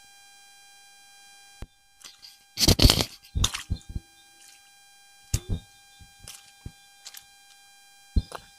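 Irregular rustling and thumping from handling close to the microphone, loudest about three seconds in, over a steady faint high electronic whine.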